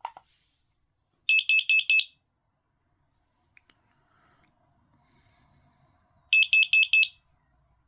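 FireAngel FA3820/EU smoke alarm sounding its high-pitched piezo beep, reacting to test smoke. It gives two bursts of about five rapid beeps each, about five seconds apart.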